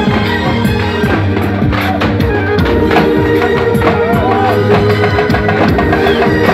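Loud dance music with drums and percussion, playing without a break.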